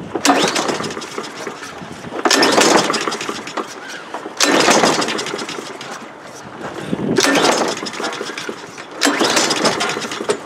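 Pull-start attempts on a Honda GV160 lawn mower engine: five pulls of the recoil starter about two seconds apart, each a short burst of cranking that dies away without the engine catching.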